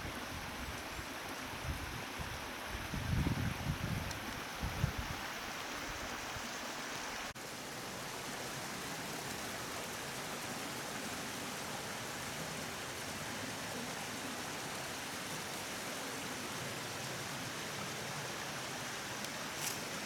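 Steady rushing of a mountain stream and waterfall, with a few low thumps in the first five seconds.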